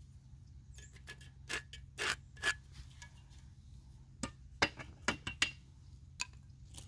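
Sharp clicks and light taps from handling a spirit level and marking pencil against a rendered wall, in two short bunches, some with a faint ring, over a low steady rumble.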